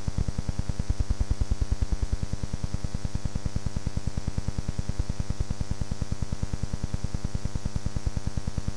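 Steady electrical hum and buzz on an old home-video recording, pulsing evenly about nine times a second, with no engines or voices in it.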